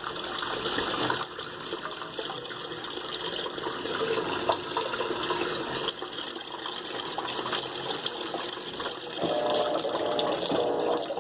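Electrolux LTE12 top-loading washing machine filling its tub with water: a steady gush from the water inlet, topping up beyond the maximum level setting.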